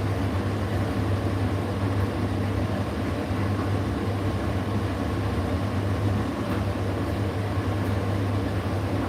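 Indesit IDC8T3 condenser tumble dryer running mid-cycle: a steady motor and fan hum with a strong low drone and an even whoosh of air over it.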